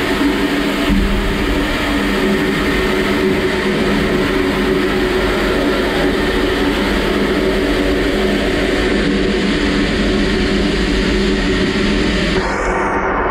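Water jets spraying hard inside a closed industrial engine-parts washing machine, heard from inside the metal cabinet as a loud, steady hiss over the machine's constant hum while it washes aluminium engine blocks. Near the end the high hiss of the spray drops off and the lower running sound carries on.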